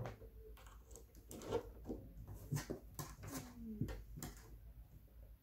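Faint handling noises: scattered light clicks and knocks, with one short squeak falling in pitch about three and a half seconds in.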